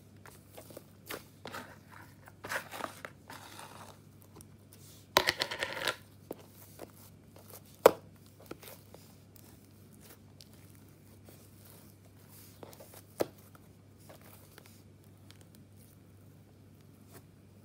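Hands stretching, pulling apart and squishing a pink slime: sticky tearing and crackling with soft pops and clicks, the loudest crackling stretch about five seconds in, and single sharp snaps near eight and thirteen seconds.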